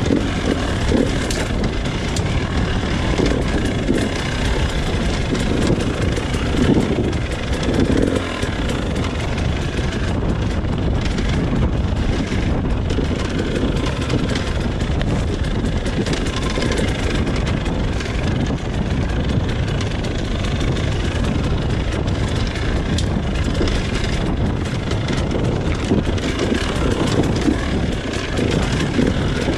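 Husqvarna TE300 two-stroke enduro motorcycle running steadily as it is ridden over off-road terrain.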